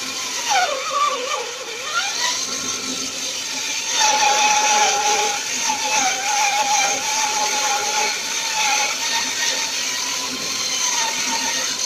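Homemade mini bandsaw driven by a washing-machine motor, running while a wooden board is fed through the blade for a rip cut. Its whine dips in pitch and recovers in the first two seconds, then holds steady.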